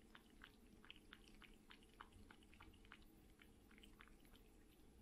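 A cat lapping liquid food from a ceramic bowl with its tongue: faint quick clicks, about four a second.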